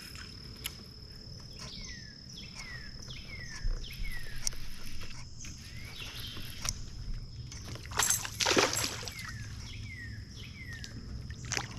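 Outdoor creek ambience: a steady high insect trill with a bird repeating short downward-sliding whistles, and a brief splash of water about two-thirds of the way through.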